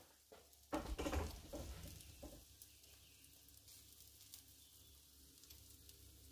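Small oat pancakes frying in melted butter in a non-stick pan: a faint, steady sizzle with fine crackles. A brief thump and rustle about a second in.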